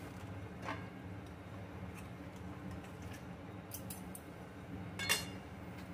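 A steel bowl of boiled mutton clinking against the rim of an aluminium kadai as the meat is tipped in: a few light metallic clicks, the loudest and ringing one near the end, over a low steady hum.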